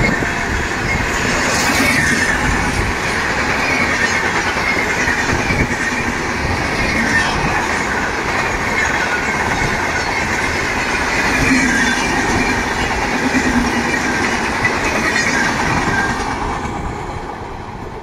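Indian Railways express passenger train of red coaches passing close at speed, its wheels clattering over the rails with a steady rushing noise. The sound fades as the last coaches pull away near the end.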